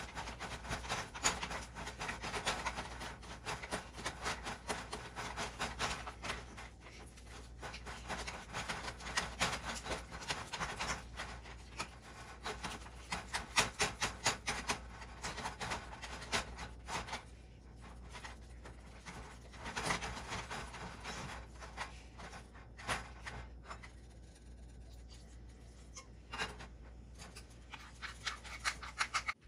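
Wooden spoon stirring and scraping thick genfo (Ethiopian flour porridge) in a nonstick saucepan: a quick run of rubbing, scraping strokes that grow sparser and quieter over the last third.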